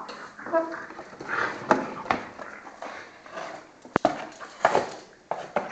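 French bulldog going at a piece of cardboard box held out by hand: scattered scrapes and rustles of cardboard mixed with the dog's own noises. A single sharp snap comes about four seconds in.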